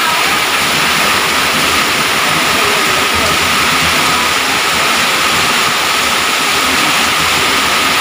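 Hailstorm: heavy rain and hail coming down hard in a steady, loud roar.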